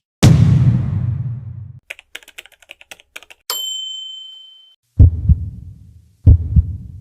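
A run of edit sound effects: a deep boom that fades over about a second and a half, then a quick patter of typing-like clicks, a high ding that rings out, and two heavy low double thumps like a heartbeat.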